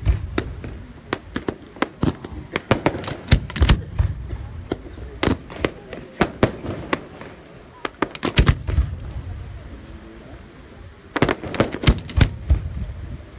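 Fireworks display going off: rapid, irregular bangs and crackling reports from shells and comets, in dense clusters with a short lull about two-thirds of the way through before another quick flurry.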